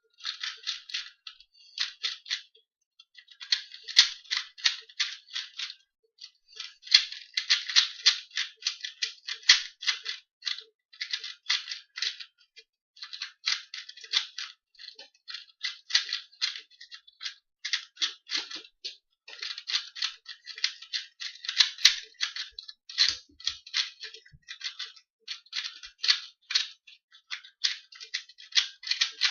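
Plastic 2x2 Rubik's cube being turned fast during a timed solve: quick runs of clicking and clacking turns with short pauses between them.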